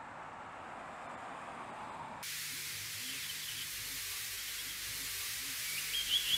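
A dull rushing noise cuts abruptly to a steady high hiss about two seconds in. A bird chirps faintly, then gives a quick run of chirps near the end.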